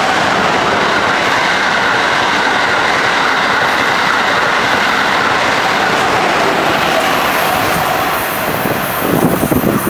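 Amtrak Acela Express trainset passing close by at speed: a loud, steady rush of wheels on rail and air, with some wheel clatter. It drops off about eight seconds in.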